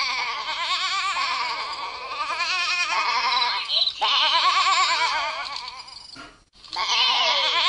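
Cartoon sheep bleating sound effects from a Furby tablet app's sleep game as sheep are flicked toward the Furby: a run of wavering bleats lasting about six seconds, a brief break, then more.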